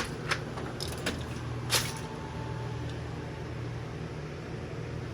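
Metal tool box drawers being handled: a sharp knock at the start and a few lighter clicks in the first two seconds, then only a steady low hum.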